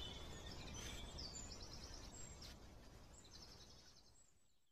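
Faint nature ambience: a steady noise with a few bird chirps, fading out near the end.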